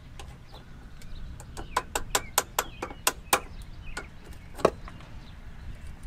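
A string of sharp, irregular metallic clicks and knocks from hand tools working on the car's underside, about a dozen, the loudest near the end.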